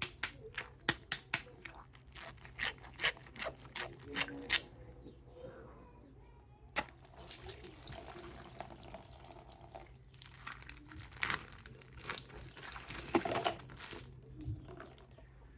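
Water running and dripping while a plastic toy figure is washed: a quick series of sharp clicks and taps over the first few seconds, then a steady hiss of running water with a few knocks from about seven seconds in.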